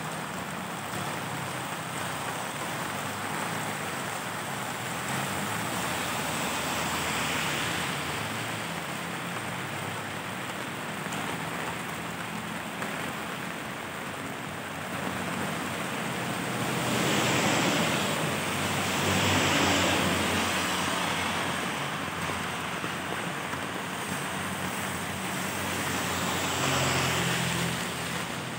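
Steady rain falling on pavement, with vehicles passing on the wet road; the loudest pass comes about two-thirds of the way through, with smaller ones about a quarter of the way in and near the end.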